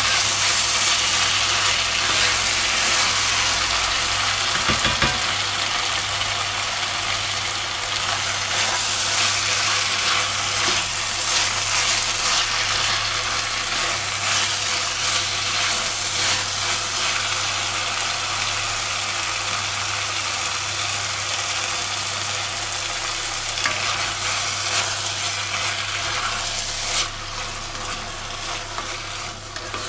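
Diced vegetables and chopped tomatoes sizzling in an enamelled cast-iron cocotte while a spatula stirs and scrapes through them. A steady low hum runs underneath, and the sizzle eases a little near the end.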